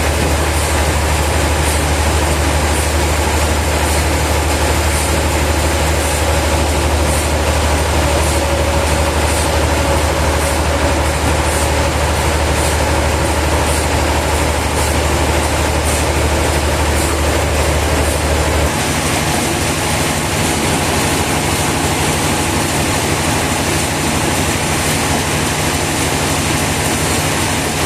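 Sawmill machinery running steadily, a loud dense mechanical noise with a deep hum underneath. The deep hum drops out about two-thirds of the way through while the rest of the machine noise carries on.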